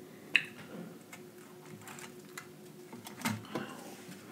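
Faint crackling and ticking of a crispy breaded fried lobster tail being picked up and handled by fingers close to the microphone, with a sharper click about a third of a second in and a few more just past three seconds. A faint steady hum lies underneath.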